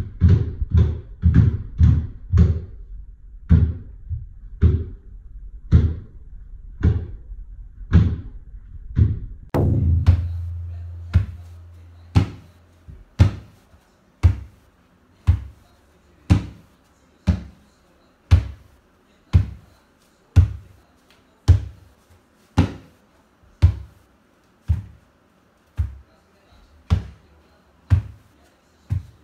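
A steady percussive beat of sharp thumps, about three a second at first and then about one a second, with a heavier hit and a low hum that fades away around ten seconds in, followed by lighter, crisper knocks keeping the one-a-second pulse.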